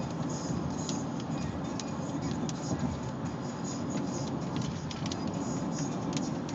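Heavy rain falling steadily, with many sharp ticks of drops striking a hard surface close by.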